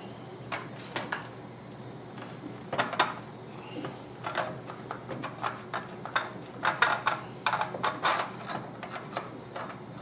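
Irregular clicks, taps and knocks of hands handling a model steam boat's metal boiler and brass pipe fittings on a wooden workbench, over a steady low hum. The knocks come in small clusters, the loudest about seven seconds in.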